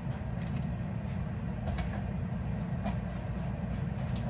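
Steady low rumble in the room, with a few faint rustles and taps as grocery packages are handled.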